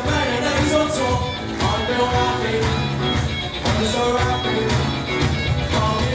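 Live rock and roll band playing: two lead vocalists singing over electric guitars, bass guitar and a drum kit with a steady beat.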